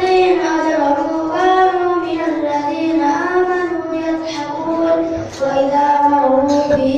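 A child reciting the Qur'an in the melodic qiroah style, drawing out long ornamented notes that glide up and down, with a short breath break about five seconds in.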